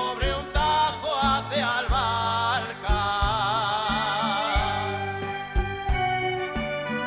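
A men's vocal group singing a Cantabrian folk song live. A lead voice sings with wide vibrato, moving from note to note, over held low notes.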